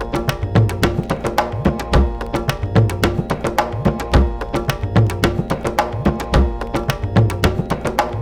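Background music with a fast percussive beat and a deep bass hit about every second.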